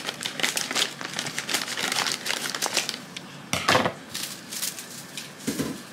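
Plastic packaging crinkling and rustling as it is handled, with a louder crackle a little over halfway in.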